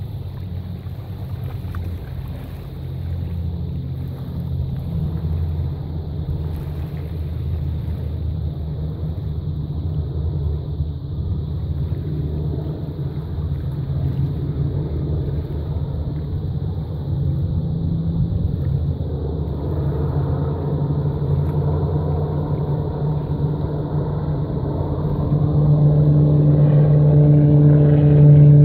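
Engines of a Canadair amphibious water bomber droning and growing steadily louder as it comes in low over the water. Clear engine tones stand out near the end, as the aircraft skims the surface to scoop water.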